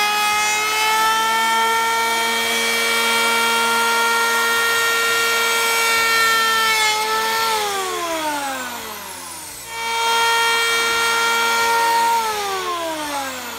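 Parkside PEH 30 C3 electric planer running at full speed, cutting across a pallet-wood board with a steady motor whine. About seven seconds in the trigger is let go and the whine falls as the cutter block spins down. It starts again about ten seconds in, runs for a couple of seconds and winds down again near the end.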